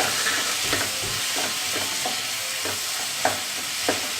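Chopped onion and tomato frying in a pan with a steady sizzle, while a spoon stirs them, scraping against the pan about every half second.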